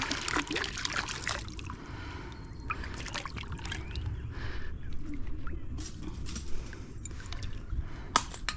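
Shallow river water splashing and trickling, with scattered small knocks and one sharp click near the end.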